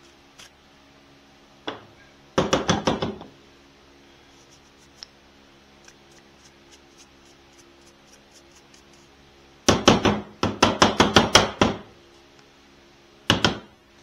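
Chainsaw air filter being tapped against a hard surface to knock the dirt out of it: quick runs of sharp knocks, a short run about two and a half seconds in, a longer one around ten seconds in, and a couple more near the end.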